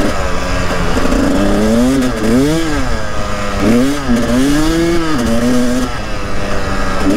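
KTM 300 TPI two-stroke single-cylinder enduro engine running under way. Its pitch rises and falls several times in the middle as the throttle is opened and closed, and it settles steadier near the end.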